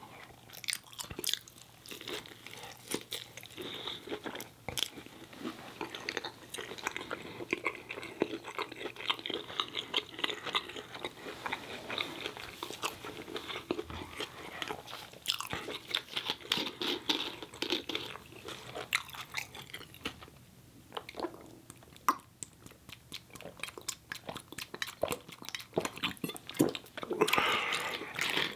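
A person chewing a bacon cheese hot dog in a bun, a steady stream of short mouth clicks that is busiest near the end.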